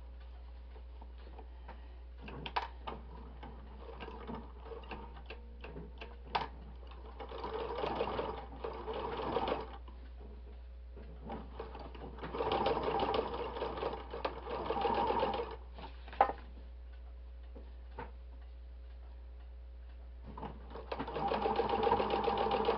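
Electric sewing machine running a straight stitch in three runs of a few seconds each: about 7 seconds in, about 12 seconds in, and again near the end. Scattered small clicks and taps fall between the runs.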